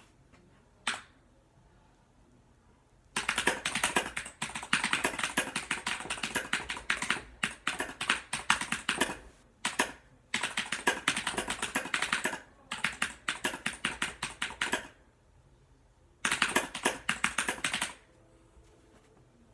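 Razer gaming keyboard being typed on rapidly, making dense runs of key clicks. One lone click comes about a second in, then a long stretch of fast typing with short breaks, and a last short burst near the end.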